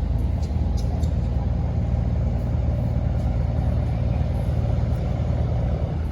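Boat engine running steadily at a constant speed, a deep even hum with no change in pitch.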